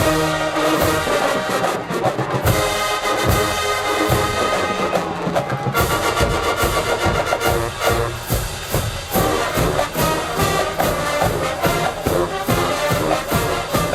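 HBCU marching band playing live: sustained brass over drums, with the drum strokes coming thick and even from about six seconds in.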